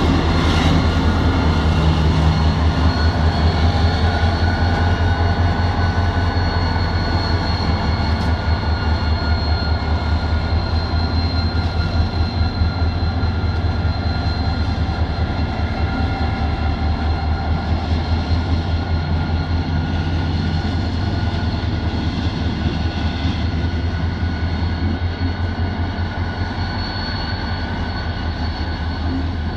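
EMD GT-26 locomotive's two-stroke diesel engine running steadily after its repair, with a rapid, even low beat and a steady high whine on top.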